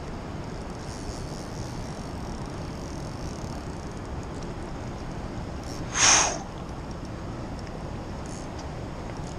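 Steady rush of river current and wind on the microphone, with one short, sharp swish about six seconds in.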